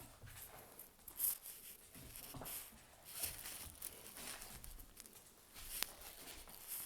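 A puppy at play makes soft, irregular scuffling and rustling, with a sharp click about a second in and another about a second before the end.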